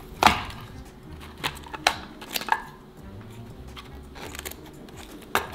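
Scissors snipping through the fake fur of a vintage Furby toy: a handful of short, sharp snips at irregular intervals.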